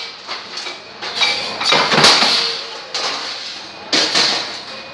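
Large steel sheet flexing and clattering as it is handled at a mechanical punch press, in two swells of metallic noise about two and a half seconds apart, over a faint steady hum.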